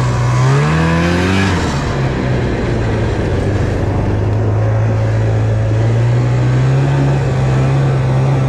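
A 440 snowmobile's two-stroke engine accelerates, its pitch climbing over the first second or so, then runs steadily at speed, rising slightly again near the end.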